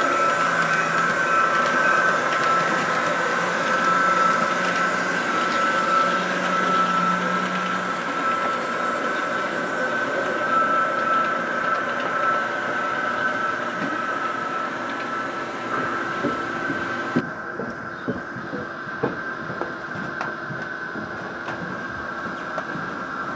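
Model trains running on a layout: a steady mechanical whine and rumble of motors and wheels on track, with scattered light clicks in the later part.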